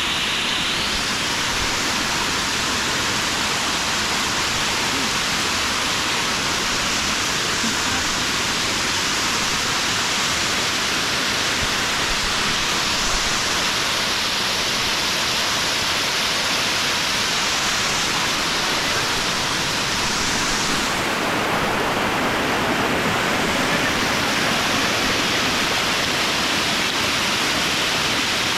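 Steady rush of falling water from a waterfall, an even, unbroken hiss of spray.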